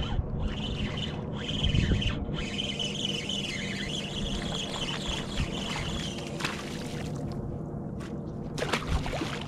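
Fishing reel's drag squealing for about six seconds as a hooked fish pulls line, then stopping, over a steady low hum. A few sharp clicks come near the end.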